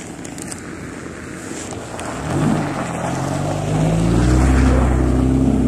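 Car engine revving as the car pulls away close by on a snowy lot. Its pitch climbs from about two seconds in, then holds high and loud. The high revving is what the onlooker puts down to a learner driver.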